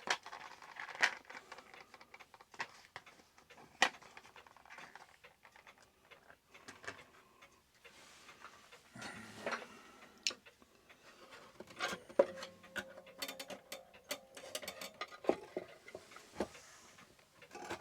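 Small clicks, taps and scrapes of a screw and metal clock parts being handled while a clock movement is fitted and screwed into its case. A short metallic ring sounds a little past the middle.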